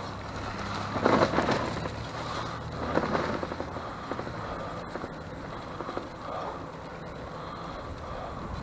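Steady low road noise of travelling, with a louder rattling clatter about a second in and another about three seconds in.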